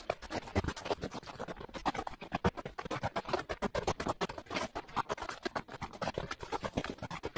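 Footsteps crunching and scraping on icy snow, a rapid, continuous crackle of packed snow and ice underfoot.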